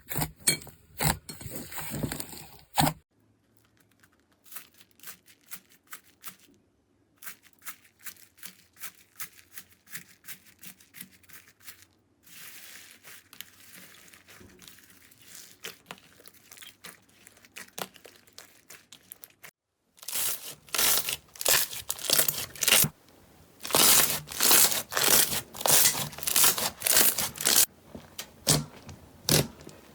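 Slime being squeezed and worked by hand, giving a dense run of small crackling and popping clicks. It comes in several short clips with abrupt cuts between them, and is loudest in the last third.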